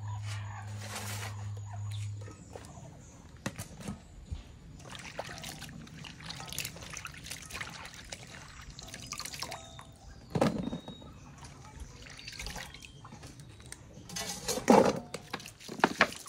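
Water splashing and dripping in a metal basin as sliced bitter gourd (ampalaya) is squeezed and washed by hand, with a few sharper splashes; near the end water is poured in from a plastic bottle.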